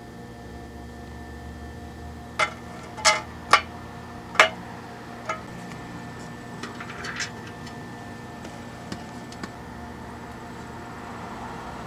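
Small hard clicks of a binding post's metal and plastic parts being handled and fitted onto a metal chassis plate: four sharp clicks within about two seconds, then a lighter click, a brief rustle and a few faint ticks, over a steady low hum.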